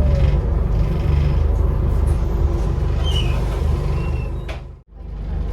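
Scania Enviro 400 double-decker bus heard from inside the lower deck: the engine running with a steady low drone, with rattles from the interior panels and a few short high squeaks about three seconds in. The sound cuts out abruptly near the end, then returns.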